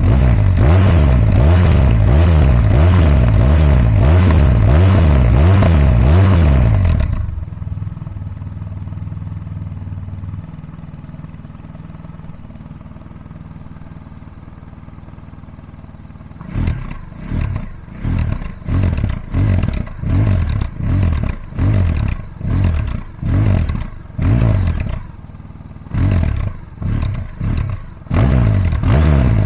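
Honda VFR1200X Crosstourer's V4 engine through a Leo Vince Evo One carbon exhaust, revved rapidly up and down for about seven seconds. It then drops back to a steady idle. From a little past halfway it is blipped in short, sharp revs about once a second.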